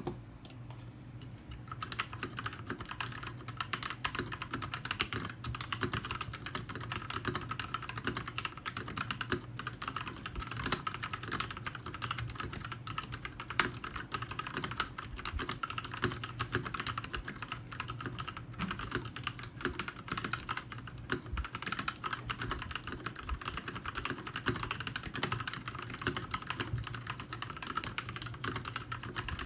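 Continuous fast typing on a foam-modded custom mechanical keyboard: a dense, steady patter of key clicks that starts about two seconds in.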